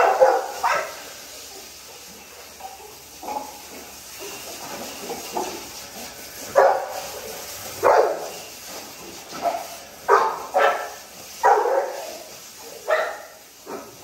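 Dogs barking in short, scattered barks, about ten in all, some in quick pairs.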